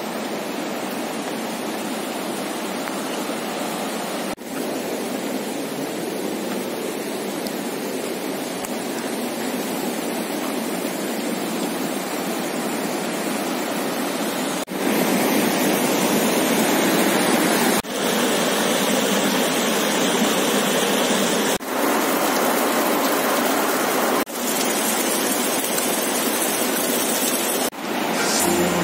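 Waterfall water rushing steadily, louder from about halfway in, with several brief sharp dips.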